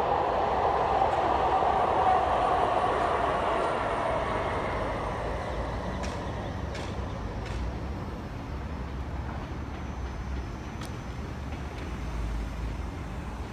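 Red light-rail trolley running along the tracks below, loudest at first and fading steadily over the first several seconds as it moves away, with a few faint clicks later.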